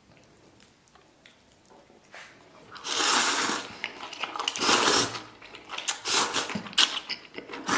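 A person loudly slurping noodles and beef tripe off chopsticks and chewing wetly, close to the microphone. After a quiet first couple of seconds come several loud slurps, the first about three seconds in.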